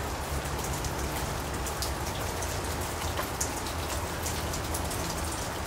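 Steady rain with scattered drops ticking.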